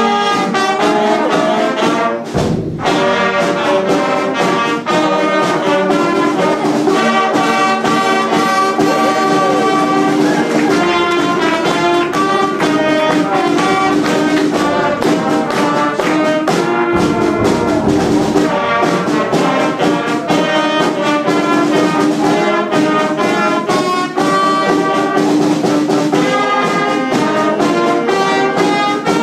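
Brass band music, horns playing held notes over a steady percussive beat, starting straight after a four-count.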